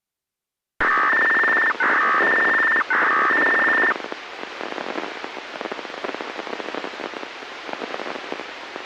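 Analog disaster-prevention radio signal heard through a scanner: three loud bursts of rapidly stepping tones, each about a second long with short gaps, the control signal that switches on the outdoor loudspeakers before a broadcast. After that the open channel gives a quieter, steady hiss.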